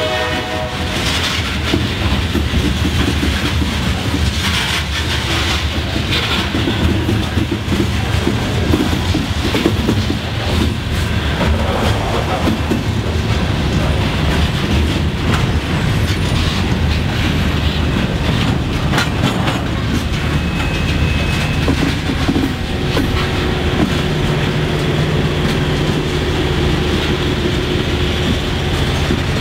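Freight cars of a mixed freight train rolling past: a steady rumble with wheels clicking over rail joints, and the tail of a locomotive horn blast cutting off at the very start. Faint thin wheel squeals come in about 20 s in and near the end.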